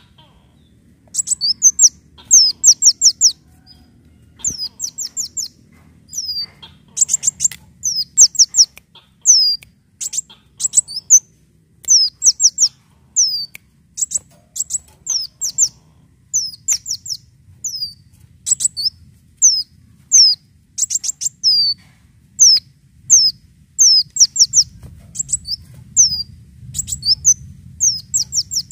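Sunbird known locally as the kolibri daun singing: high, sharp chirps, each a quick downward slur, given singly or in rapid runs of four or five notes and repeated over and over.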